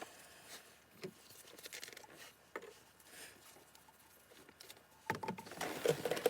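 Faint handling noises in a car interior: a few light knocks and rustles, getting busier and louder about five seconds in, as bottles, a rag and gloved hands are handled.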